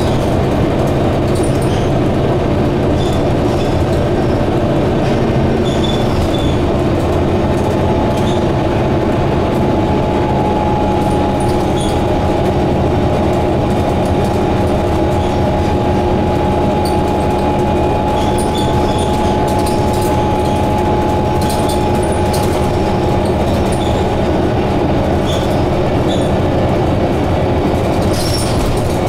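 Scania K230UB double-decker bus, with its 9.3-litre five-cylinder diesel, heard from inside the upper deck while on the move: a steady engine drone with road noise. A faint steady whine runs through the middle, and small ticks from the body and fittings come and go.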